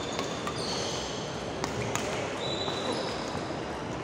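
A badminton rally on a wooden hall floor: several sharp racket-on-shuttlecock hits, and court shoes giving high, drawn-out squeaks a few times as the players move.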